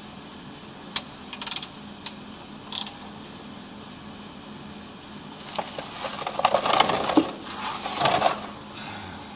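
Metal hand tools clinking against the underside of a car: a few separate sharp clinks in the first three seconds, then a dense run of clicking and rattling for nearly three seconds from a socket wrench working on the catalytic converter's mounting bolts.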